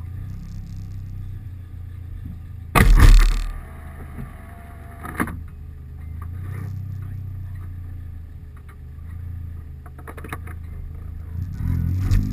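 A car driving, heard through a GoPro HD Hero 2's closed waterproof housing: a muffled, steady low drone of engine and road, with one loud sudden thump about three seconds in and a smaller knock about two seconds later, the drone growing louder near the end.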